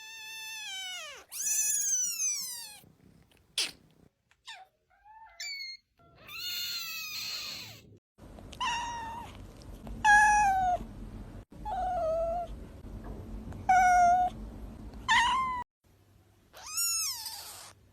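Kittens meowing: about a dozen separate high-pitched meows, each rising then falling in pitch, from several different kittens one after another.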